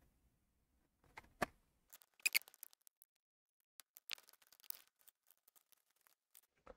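Scattered light plastic clicks and taps as a laptop's plastic vent strip is pressed down into the chassis and the parts are handled. There are a few sharp clicks, the loudest a quick pair about two and a half seconds in, and then softer ticks.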